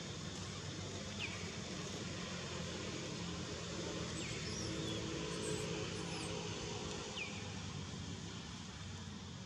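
Outdoor ambience: a steady low hum and hiss, with three faint, short falling bird chirps spread through it.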